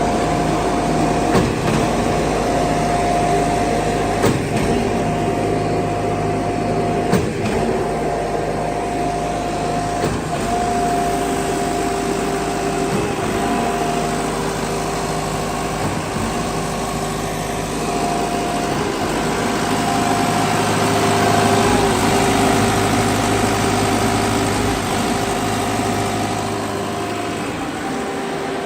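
Diesel concrete mixer pump running steadily: a low engine hum with a high whine that drops out briefly every few seconds, and a second, lower whine joining about ten seconds in. A few sharp knocks sound in the first seven seconds.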